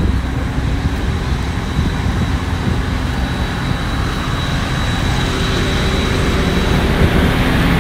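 Steady low rumble of a passenger ferry's engines running at the dock, with a faint steady whine above it.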